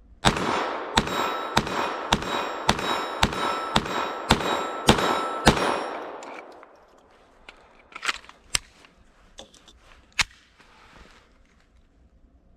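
Glock 44 .22 LR pistol fired ten times in steady succession, about two shots a second, each report ringing out with reverberation. A few lighter clicks follow after the firing stops.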